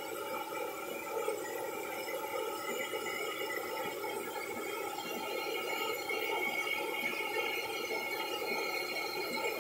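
Vacuum cleaner running steadily, its hose end sucking at a capuchin monkey's lips.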